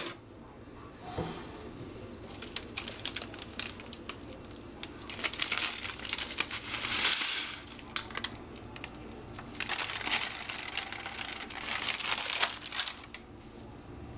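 Dried cannabis sugar leaf being poured off a sheet of paper into a plastic-lined slow cooker and crumbled by hand: crinkling paper and plastic liner with the crackle of dry leaves. The crinkling comes in several bursts, the loudest about seven seconds in.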